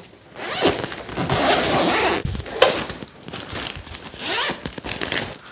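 Zipper of a fabric carry bag being pulled open, one long pull followed by several shorter ones, with the bag's fabric rustling.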